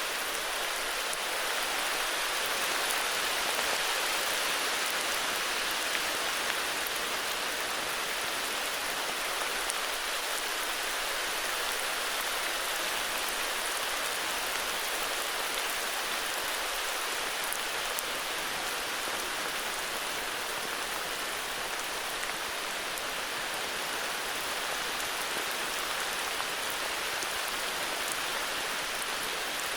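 Heavy rain falling steadily on foliage and ground, an even hiss with occasional faint drop ticks.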